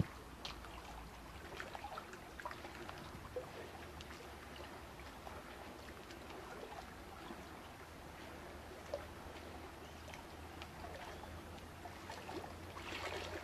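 Faint, steady sound of running water, trickling, with scattered small clicks over a low hum.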